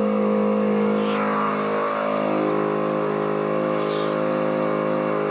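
Air compressor running steadily, a continuous motor hum, supplying air to a DIY exhaust smoke tester. A couple of faint taps sound over it, about a second in and near four seconds.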